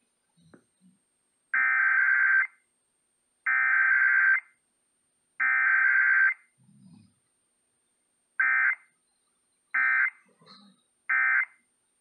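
Emergency Alert System digital data bursts played through an AM radio's speaker: three screeching one-second header bursts about two seconds apart, then three shorter bursts near the end. This is the end-of-message code closing a Required Weekly Test.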